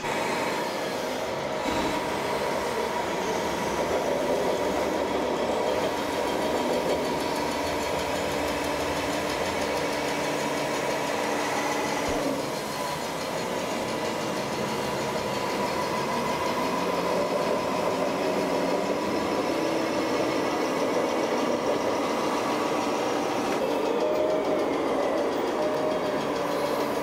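Engine sound of radio-controlled model trucks and tractors running steadily, with a few held tones over a constant mechanical noise.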